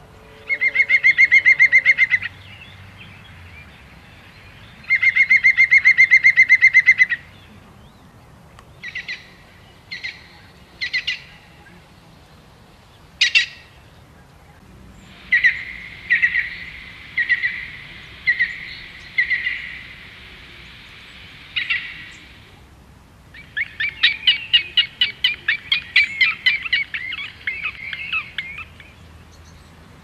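Birds calling: two rapid trills of about two seconds each, then a string of short separate calls, and a longer rapid chattering series near the end.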